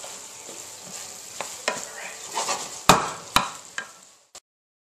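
Food sizzling in a sauté pan while a utensil stirs it, knocking sharply against the pan five times, the loudest knock about three seconds in. The sound cuts off suddenly just after four seconds.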